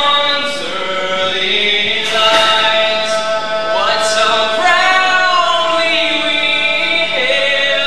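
Solo young male voice singing the national anthem unaccompanied into a handheld microphone, in long held notes.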